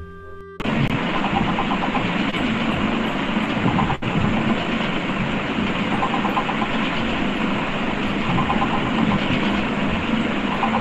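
Loud, steady rumbling noise with a faint, fast rhythmic clatter through it. It starts abruptly about half a second in, cutting off a few musical tones, and comes over the video-chat audio from the new chat partner's side.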